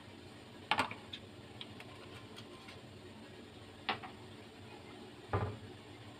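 Three separate sharp knocks of kitchen objects being handled, the last a duller thud, over a faint steady background hum.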